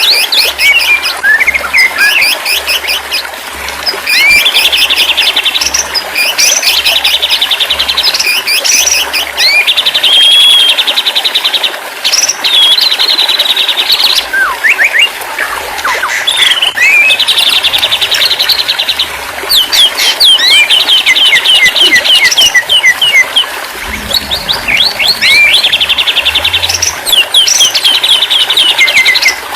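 White-rumped shama (murai batu) song, loud and continuous. Sharp whistled notes gliding up and down alternate with rapid chattering trills, in phrases that repeat again and again.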